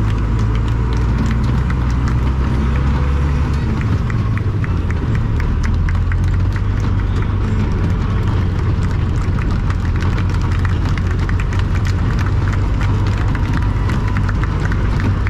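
Pulling tractor's engine running steadily at low revs, heard from inside the cab as the tractor rolls slowly along the track.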